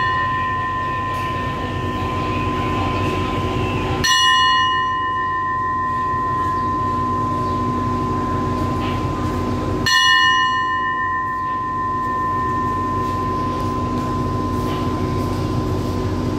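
A station bell struck twice, about four and ten seconds in, each stroke ringing on clearly for several seconds; the tail of a stroke just before is still sounding at the start. Under it runs the steady hum of the standing express train's Alsthom diesel-electric locomotive idling. On Thai railway stations the bell is the departure signal to the train crew.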